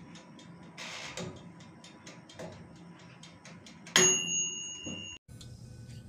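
Mechanical wind-up timer of a Black+Decker OTG oven ticking at about four ticks a second as its knob is turned by hand. About four seconds in, its bell rings once with a bright ding, the signal that the timer has run out. The ding is cut off after about a second.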